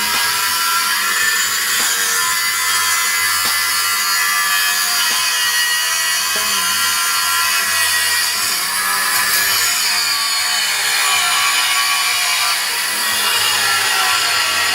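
A power tool running steadily against a steel exhaust pipe, working it at length with a slight rise and fall in pitch as it bites.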